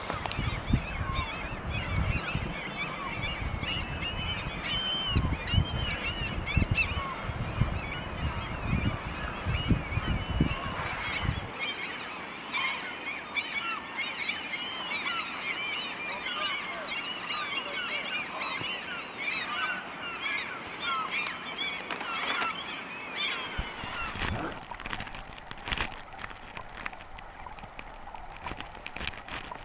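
A large flock of gulls calling, many short cries overlapping without a break. A low rumble runs under the calls and stops about a third of the way in.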